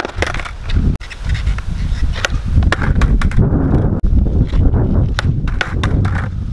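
Skateboard wheels rolling on rough asphalt with a continuous rumble, broken by sharp clacks of the tail and deck striking the ground as kickflips are attempted. The clacks come once at the start, twice a couple of seconds in, and as a quick run of four near the end.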